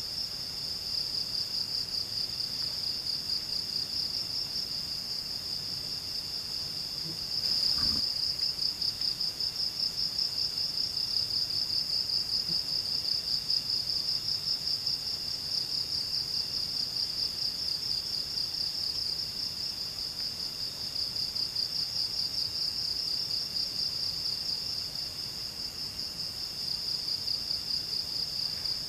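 Insect chorus: a steady, high, fast-pulsing trill, with a second, lower trill that starts and stops every few seconds. A brief low thump sounds about eight seconds in.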